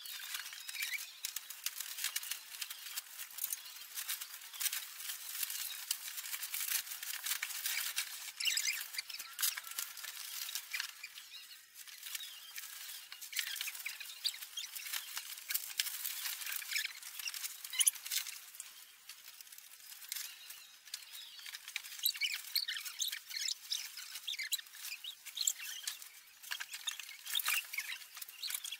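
Plastic packaging wrap crinkling and rustling as it is handled and pulled off a new electric scooter: a continuous run of irregular crackles and small clicks.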